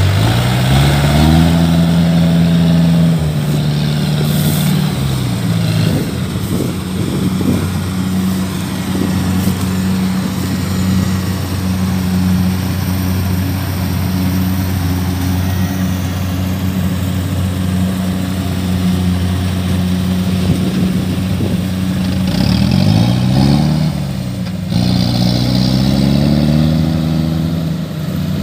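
Kubota DC-70 combine harvester's diesel engine running under load as the tracked machine works through sticky paddy mud. The engine speed rises at the start, falls off a few seconds in, and dips and climbs again near the end.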